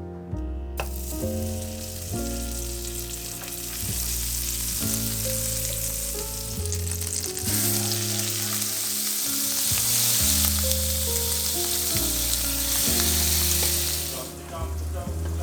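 Food sizzling as it fries in a hot pan. The sizzle starts about a second in, grows louder in the middle and dies down near the end, with background music playing throughout.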